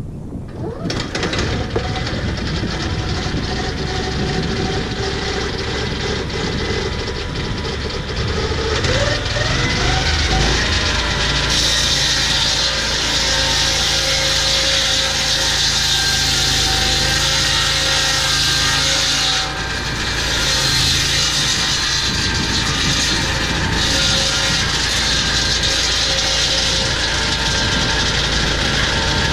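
Portable swing-blade sawmill's petrol engine starting up, revving up in pitch about ten seconds in, then running steadily at full speed with the saw cutting through a log.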